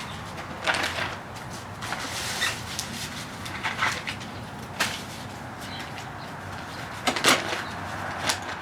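Ears of sweet corn being husked by hand: husks rustling and tearing off in irregular short crackling bursts, the loudest a little past seven seconds in.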